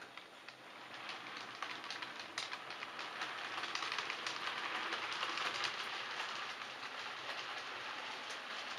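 Model multiple-unit train running on the layout track: a steady rolling hiss with many small clicks of the wheels over the rail joints, rising over the first few seconds and then holding steady.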